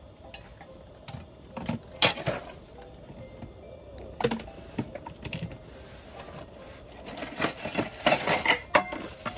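Light clinks and knocks of a camp cooking pot and utensils being handled, a few at first and then coming thick and fast near the end.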